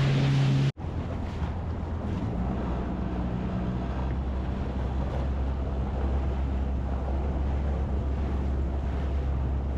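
Sea-Doo personal watercraft engine running, with water and wind noise. Less than a second in, the sound cuts off abruptly and comes back as a lower, steady engine drone.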